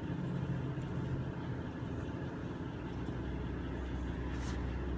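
Steady low mechanical hum of a running motor, like an idling engine, growing deeper and stronger about three seconds in.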